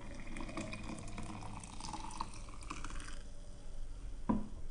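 Freshly made coconut milk being poured into a container: a steady liquid pour that stops about three seconds in, followed by a short knock near the end.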